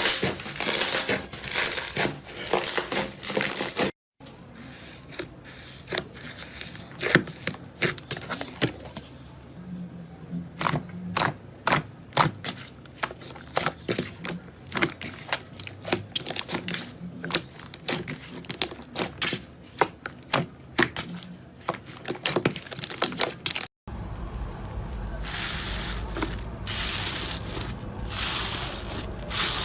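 Slime being squeezed and pressed by hand, making a run of sharp crackling pops and clicks. The crackling is dense at first, turns sparser after a sudden change about four seconds in, and grows dense again, with a low rumble of handling, after another sudden change near the end.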